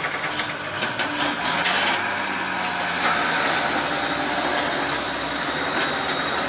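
Truck and digger engines running under load as the digger's bucket pushes a loaded dump truck through mud. A high steady whine joins about halfway through.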